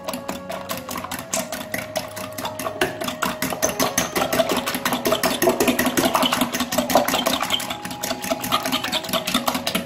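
Fork beating eggs and sour cream in a glass bowl: rapid, even clinking of the metal fork against the glass.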